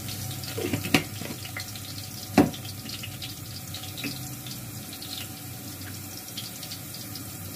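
Sliced onions sizzling and crackling in hot oil in a pot, a steady hiss scattered with small pops. There are two sharp knocks about a second in and about two and a half seconds in, the second one the loudest.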